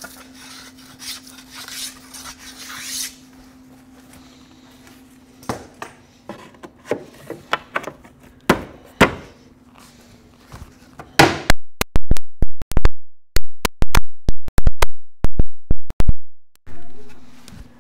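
Hammer tapping a wooden parting bead strip into the slot of a historic window frame to test its fit: a few scattered knocks, then a quick run of about a dozen sharp, loud strikes, about three a second, over the last few seconds.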